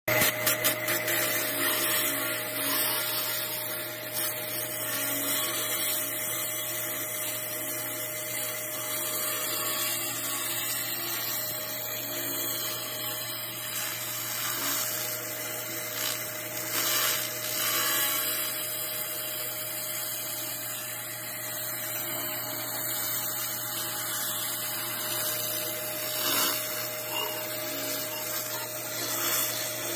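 Handheld laser cleaner ablating carbon and rust from an engine cylinder head, a steady crackling hiss as the pulsed beam scans the metal, over the machine's steady hum.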